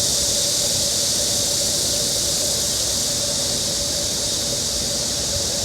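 Steady high-pitched hiss with a faint steady tone underneath, even throughout.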